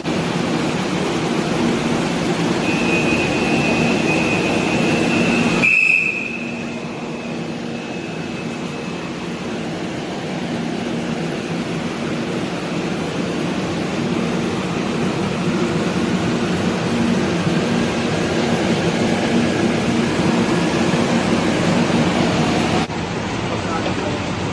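Steady rumbling ride noise of a moving vehicle, with a high, steady squeal from about three to six seconds in. The level drops suddenly about six seconds in and again near the end.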